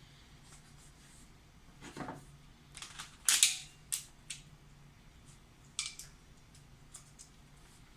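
Scattered sharp clicks and knocks from handling an airsoft gun and magazine, with a louder clatter about three seconds in.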